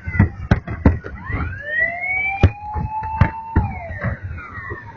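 Fireworks display: several whistling shells, their tones gliding up and down in pitch and overlapping, amid a string of sharp bangs and pops.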